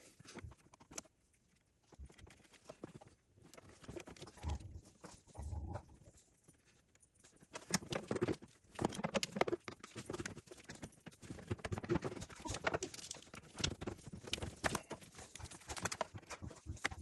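Hand tools clicking and clattering against metal as a nut is worked onto the bolt that holds the plow's ground cable. A few scattered knocks come first, then busier irregular clicking from about halfway through.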